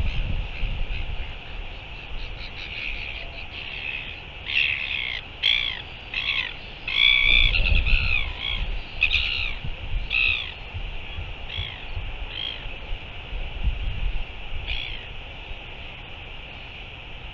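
Gulls calling in a quick series of short, harsh, arching cries, thickest in the middle with a few stragglers later, over gusts of wind rumble on the microphone.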